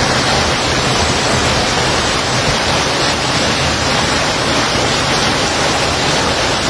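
Floodwater rushing in a steady, loud, even torrent, cutting off abruptly at the end.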